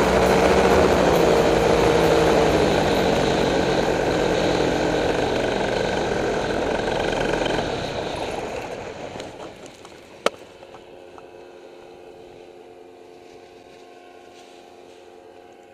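Paramotor engine running with wind rush as the pilot comes in low to land, then winding down and fading out over a second or two about eight seconds in. A single sharp click follows about ten seconds in, and then only a faint steady hum.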